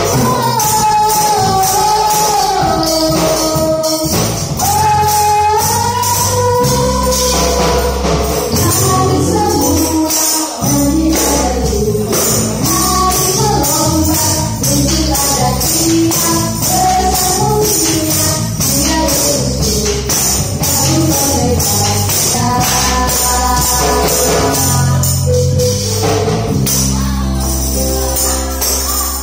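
Upbeat worship song with singing over a steady beat and bass, with hand tambourines jingling and being struck in rhythm along with it.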